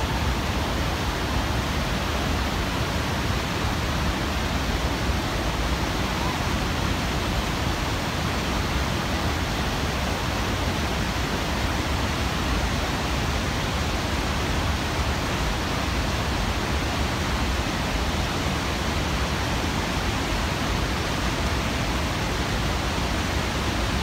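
Whitewater rapids rushing in a steady, unbroken roar of churning river water.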